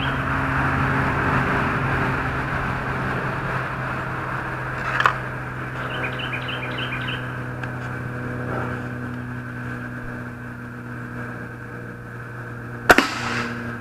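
A single shot from a .25 calibre Hatsan Mod 125 break-barrel air rifle near the end, a sharp crack as the pellet is fired into the pellet trap. Before it there is a steady low mechanical hum, with a faint click about five seconds in and birds chirping shortly after.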